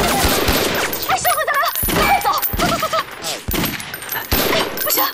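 Gunfight: repeated pistol and rifle shots, many close together, with wavering cries heard among them between about one and three seconds in.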